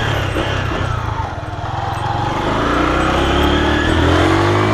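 Honda CG 125 single-cylinder four-stroke engine running under way. Its revs climb and it gets louder from about halfway through as the bike accelerates.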